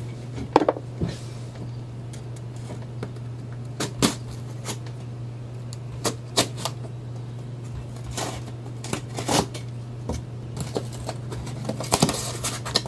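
A cardboard shipping box being cut open with a knife and handled: scattered scrapes, clicks and crackles of the blade on the tape and the cardboard being pulled open, with a steady low hum underneath.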